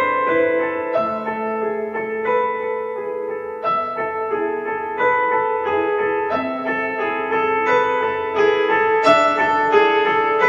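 Solo piano background music: a slow melody of single notes struck about once a second over held lower notes.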